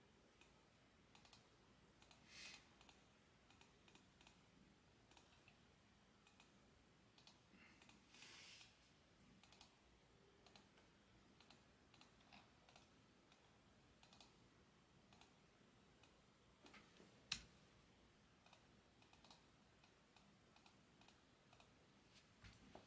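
Near silence with faint, scattered clicks of a computer keyboard and mouse, and one sharper click about seventeen seconds in.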